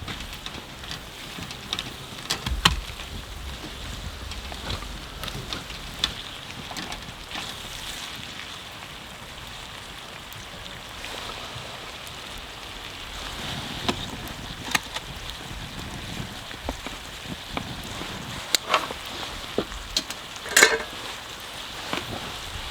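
Large wood bonfire burning: a steady hiss of flames with irregular crackles and pops of burning wood, a few of them sharp and loud.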